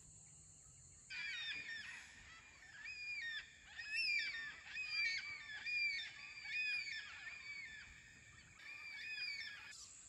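A flock of black cockatoos calling, many calls overlapping, each rising and falling in pitch, starting about a second in. Many of them calling together is taken as the sign of a rainstorm coming.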